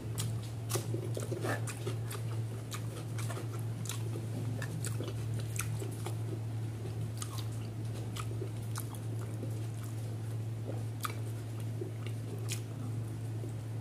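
Close-miked eating of catfish curry and rice by hand: chewing with many short wet mouth clicks and smacks, over a steady low hum.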